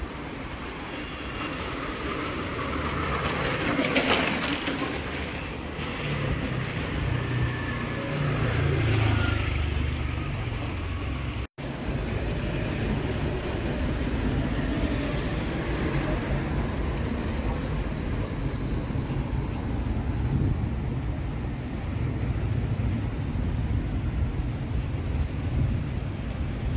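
Road traffic and city street noise, with a vehicle passing about four seconds in and a steady rumble after. The sound cuts out for an instant about eleven seconds in.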